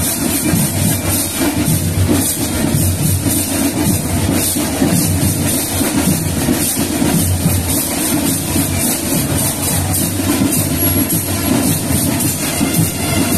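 Marching band with drums, cymbals and brass playing loudly to a steady, even beat.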